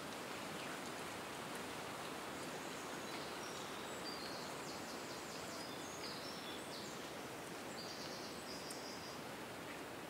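Wind blowing through forest trees: a steady rustling hiss of moving leaves and branches. Faint high-pitched chirps come and go in the background from about three seconds in.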